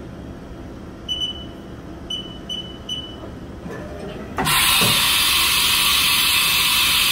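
Haas VF-9/40 umbrella tool changer making a tool change: a few short electronic beeps over the machine's hum, then about four seconds in a sudden loud hiss of air through the spindle as the tool is released, lasting three to four seconds and cutting off abruptly, with clunks as it starts and near the end.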